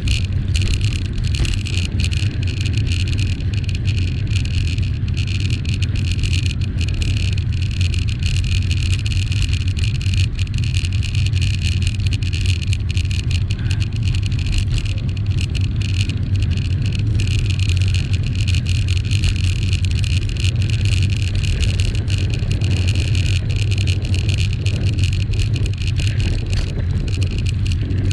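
Steady rush of wind on the microphone with tyre noise from a bicycle being ridden along a road: an even, continuous rumble that does not change.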